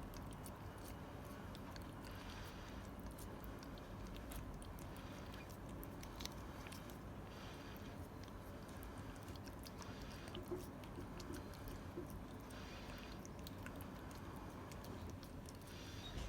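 A cat eating a Churu lickable paste treat: a steady run of faint wet licking and smacking clicks.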